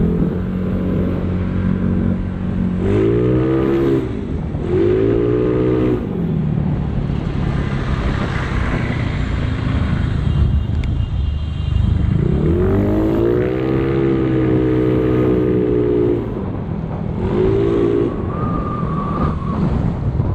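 Yamaha Mio Sporty scooter's single-cylinder engine, bored to 160cc, running through a ReplicaPro Silent Killer straight-cut exhaust while riding, revving up and easing off several times, with a long pull about twelve seconds in.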